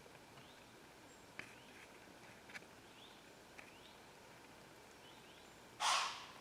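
Quiet woodland with faint, short rising bird chirps repeating and a few soft clicks. Near the end comes a loud, short rustling burst.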